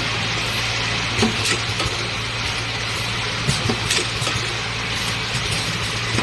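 Automatic four-head piston filling and capping machine running: a steady hum and machine noise, with irregular clicks and knocks from its moving parts.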